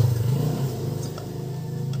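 A low, steady engine-like drone fading away, with a couple of faint metallic clicks of a tool at the pulley bolt.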